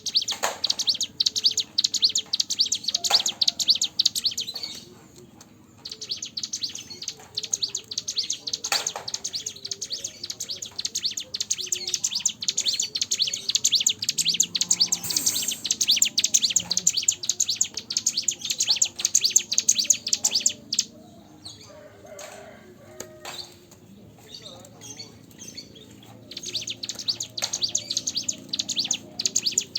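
Ciblek gunung, a small prinia, singing long bouts of rapid, high chattering trills, broken by a short pause about five seconds in and a longer lull after about twenty seconds.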